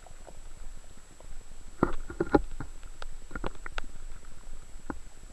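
Underwater sound heard through a camera: a low rumble of moving water with irregular clicks and knocks, several in a cluster about two to four seconds in, over a faint steady high whine.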